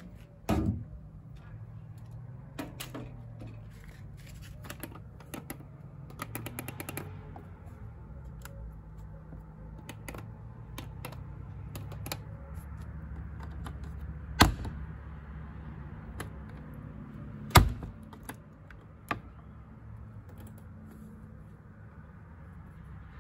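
Clicks of the control-panel buttons on a Gorenje WA 72149 RD washing machine being pressed at the end of its spin cycle, with a quick run of clicks about six seconds in, over a low steady hum. Two sharp knocks stand out about three seconds apart midway.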